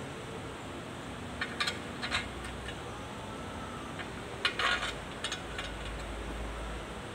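Light metallic clinks of tools or small metal parts being handled, in two short clusters, a second or two in and again past the middle, over a steady background hiss.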